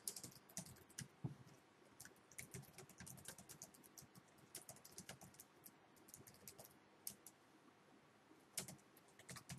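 Faint typing on a computer keyboard: quick, irregular keystrokes, with a short pause about eight seconds in before a last flurry.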